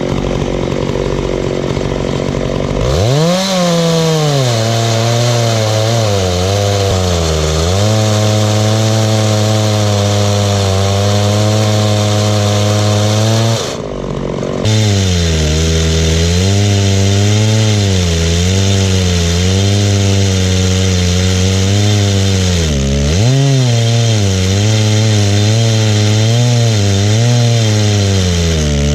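Chinese-clone Stihl MS660 two-stroke chainsaw on a chainsaw mill, idling and then opened up to full throttle about three seconds in. It then runs under heavy load ripping through a dense red gum eucalyptus log, its pitch dipping and recovering as the cut loads it, with a brief break about halfway.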